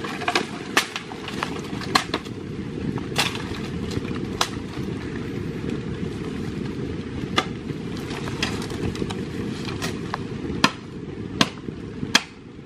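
Footsteps crunching through dry bamboo leaf litter, with sharp cracks of dry twigs and canes snapping or knocking at irregular intervals, about a dozen in all. A steady low rushing noise lies underneath.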